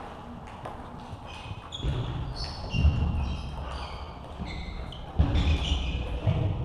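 Celluloid-type table tennis balls clicking off bats and tables, many short, sharp ticks from several tables in play in a large sports hall, with a few dull low thumps between them.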